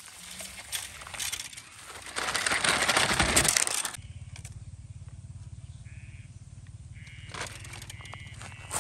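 Toy radio-controlled off-road truck pushing through dry grass and brush, its tyres crunching and crackling over dry stalks and leaves, loudest for about a second and a half around the middle. It then drops abruptly to a quieter steady low hum with a few clicks near the end.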